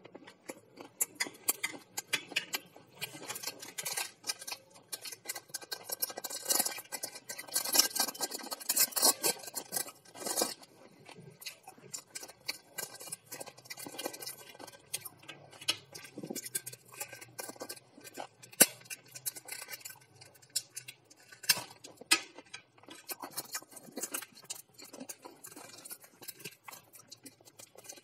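Thin plastic bag crinkling and rustling as it is handled and torn open by hand, a dense crackle that is loudest for a few seconds in the first half, with scattered sharp clicks and taps.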